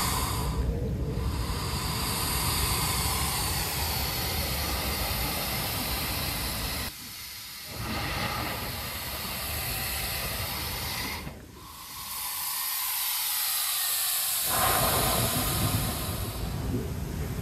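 Air and water rushing in and out of a hole in wet lava rock as the surf surges, a loud steady hiss. It drops away briefly about seven seconds in and again about eleven seconds in, then comes back.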